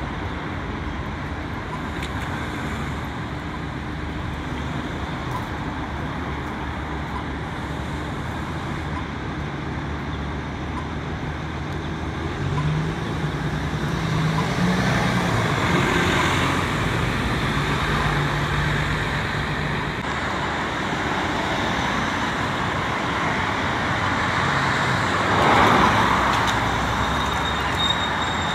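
Steady city road traffic with cars driving past. An engine hum builds about 12 seconds in as a vehicle passes close, and the loudest pass comes near the end.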